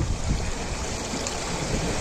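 Ocean waves washing steadily, with a deep low rumble under the hiss of the surf.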